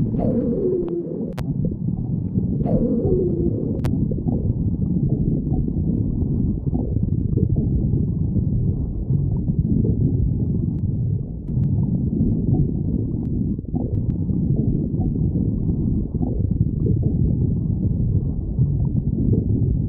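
A person's stomach growling and gurgling: continuous low rumbling, with two short squeals that fall in pitch in the first few seconds.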